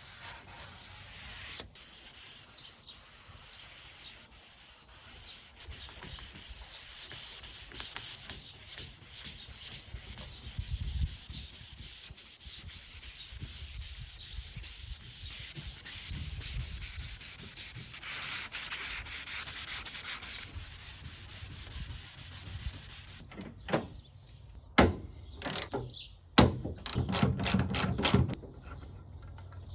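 Sandpaper rubbing over a car's steel body panels, taking off surface rust and smoothing the old surface before priming. Near the end the rubbing gives way to a run of sharp knocks, two of them loud.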